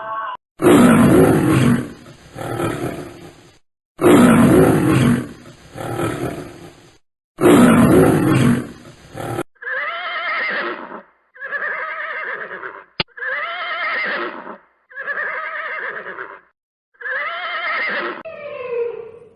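Animal calls: three long, harsh, loud calls, then six shorter pitched calls with a wavering, quavering tone.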